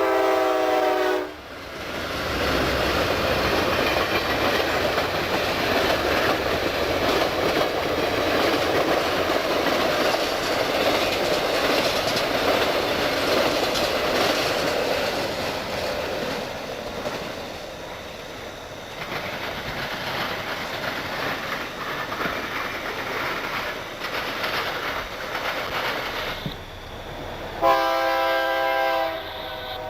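Freight train passing at track level, wheels and cars rumbling and rattling on the rails. The locomotive's multi-chime air horn ends a blast just after the start and sounds again, loudest, near the end.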